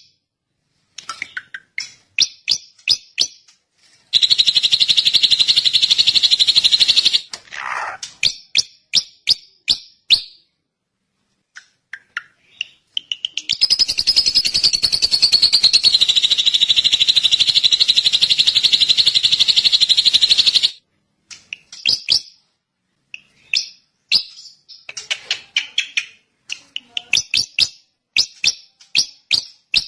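Drongo song: fast runs of sharp chattering notes, with a falling whistle about eight seconds in and two long, very rapid trills, one a few seconds in and one from about 13 to 20 seconds in, each starting and stopping abruptly.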